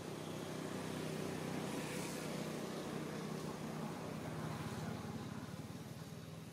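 A motor vehicle engine running in the background: a steady low drone that fades gradually near the end.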